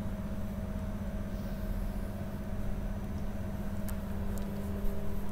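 Steady low electrical hum of room tone, with a faint click about four seconds in.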